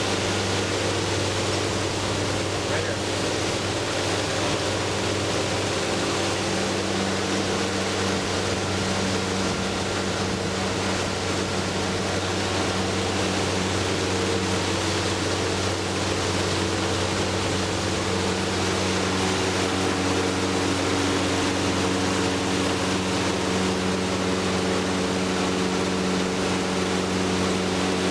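Tour boat's motor running steadily, with water and wind noise; the engine note shifts slightly about two-thirds of the way through.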